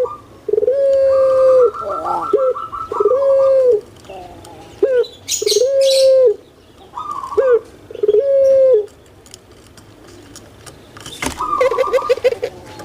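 Puter pelung (domestic collared dove, Streptopelia risoria) cooing: a series of four long drawn-out coos of about a second each, with short clipped notes between them, then a rougher, higher call near the end.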